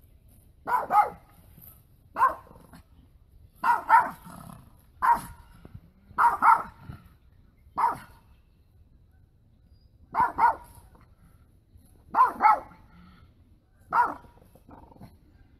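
A dog barking in short bouts, about every second and a half, often two barks in quick succession.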